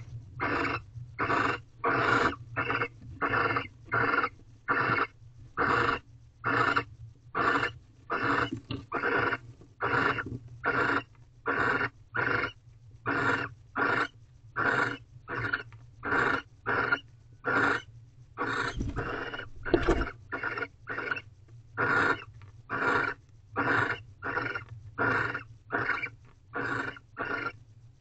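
Barn owl giving short, rasping hiss calls in a steady rhythm, about two a second, over a faint steady low hum. A dull low thud comes about two-thirds of the way through.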